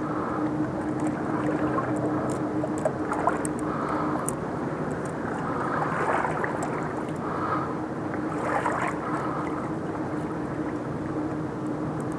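A steady motor hum holding one constant pitch, over a wash of water noise, with a few light clicks and splashes now and then.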